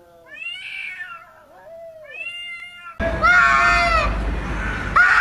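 A cat meowing several times in short rising-and-falling calls. About three seconds in the sound gets suddenly louder, with background noise and two long, loud cries.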